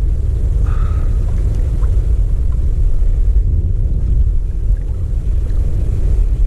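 Wind buffeting the camera microphone over choppy water: a steady low rumble.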